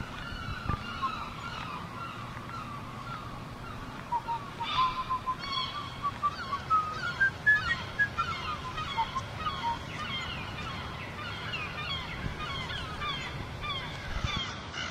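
Birds calling: many short, overlapping calls over a steady low background, loudest and busiest in the middle of the stretch.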